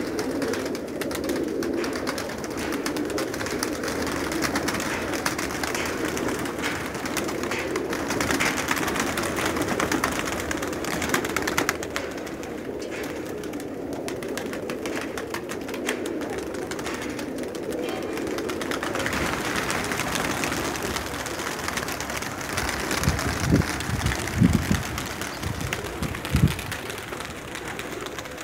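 A large flock of domestic pigeons cooing without pause, with wings flapping as birds take off and land. A few louder low thumps come near the end.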